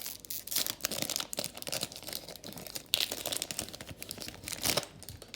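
Plastic wrapper of a Topps baseball card pack crinkling and tearing as the pack is opened, the crackling stopping abruptly near the end.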